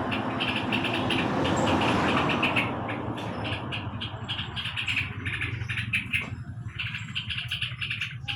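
Yellow-vented bulbuls (trucukan) chirping in quick runs of short, high calls. Over the first few seconds a loud rushing noise fades out beneath them.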